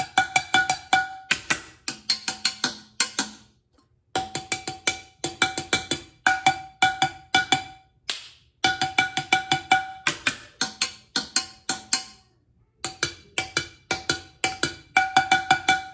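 Two wooden spoons drumming a rhythm on the bottom of an upturned metal cooking pot: quick runs of strikes in phrases, with a short pause about every four seconds. Each strike rings with a clear metallic tone.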